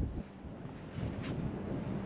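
Wind buffeting the camera microphone: an uneven low rumble in gusts that drops briefly just after the start, then settles into a steadier rush.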